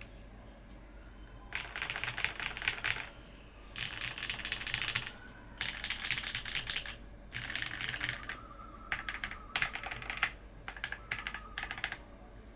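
Typing on a TGR 910 65% top-mount keyboard with an aluminium plate, lubed and filmed Cherry MX Retool Black linear switches and GMK keycaps. The keystrokes come in about seven quick runs of a second or so each, with short pauses between.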